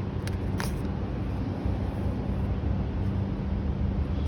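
Steady low mechanical hum like an idling vehicle engine, with two light clicks within the first second.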